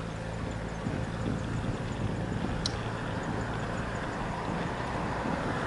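A motor vehicle's engine humming steadily under rushing wind and road noise, the rush growing louder near the end. One short sharp tick about two and a half seconds in.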